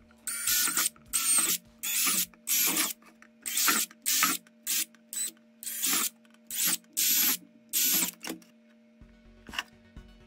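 Cordless drill boring a series of holes through a plastic enclosure, in about a dozen short bursts of motor whine and cutting noise in quick succession that stop about eight seconds in.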